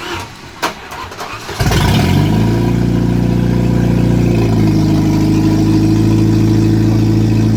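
1989 Jeep Wrangler engine catching about a second and a half in after a few short knocks, then running loud and steady at a fast idle. It has no exhaust system fitted.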